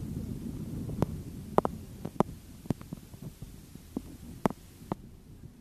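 Low rumble inside the cabin of a moving vehicle, with about eight sharp, irregular knocks scattered through it. The rumble eases a little after about two seconds.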